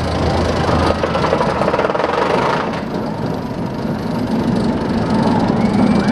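Intamin steel looping roller coaster train rumbling along its steel track, a steady, loud roar of wheels on rails.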